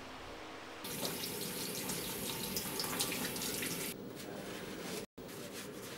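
Tap water running into a stainless steel sink during hand washing, starting about a second in and stopping about four seconds in, with fainter room noise after.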